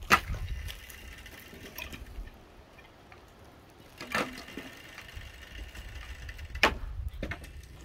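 Wooden poles knocking against each other: three sharp knocks a few seconds apart, the first and last the loudest.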